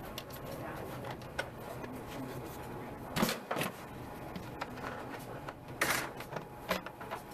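Scattered light clicks and knocks over a steady low hum, with a few louder clatters about three seconds in and again near six seconds.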